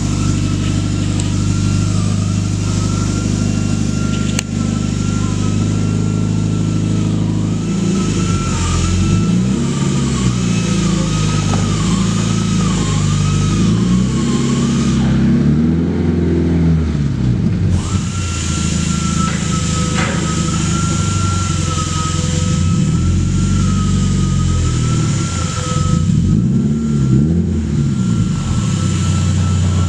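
2013 Scion FR-S flat-four engine breathing through a newly fitted Invidia N1 dual-tip exhaust. It idles steadily for several seconds, is then blipped up and down repeatedly for several seconds, settles back to idle, and gets another short pair of revs near the end.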